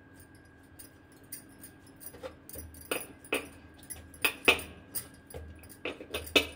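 Glass bangles clinking and light taps on a wooden chopping board as hands press a coil of paratha dough flat. The first two seconds are quiet, then come about eight sharp clicks, some in quick pairs.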